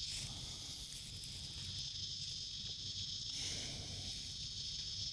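Insects droning in a steady, high-pitched chorus, with two brief rushes of noise, one at the start and one about three and a half seconds in.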